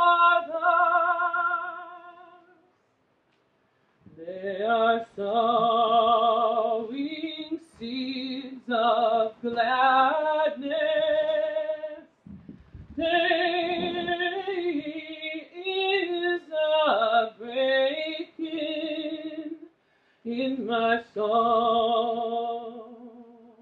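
A contralto singing unaccompanied in long, held phrases with vibrato, with short breaths and pauses between phrases.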